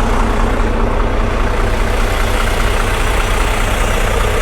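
Semi-truck's diesel engine running steadily, a deep, even rumble with road and mechanical noise over it.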